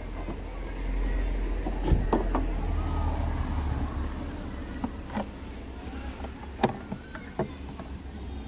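Plastic clicks and knocks as the oil filler cap and the plastic engine cover of a BMW N46 four-cylinder are handled and lifted off. The loudest click comes about two seconds in and another near seven seconds, over a low steady rumble.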